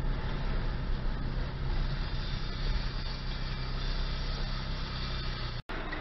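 Steady engine hum and road noise inside a moving car's cabin, picked up by a dash cam. It cuts out for a moment near the end.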